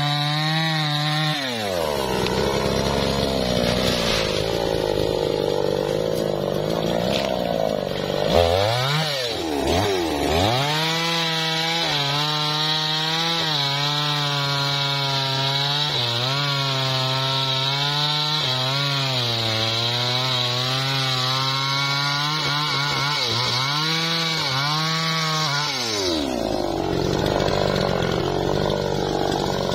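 Two-stroke chainsaw cutting through a small teak tree, first at the base of the standing trunk, then across the felled log. The engine pitch sags under load, dips sharply twice about eight to ten seconds in, holds high and wavering through the cross-cut, then falls back a few seconds before the end.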